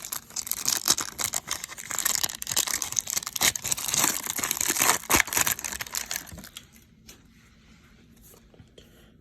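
A Collector's Choice baseball card pack's wrapper being torn open and crinkled, a dense crackling with sharp clicks that dies away about six and a half seconds in, leaving only faint handling.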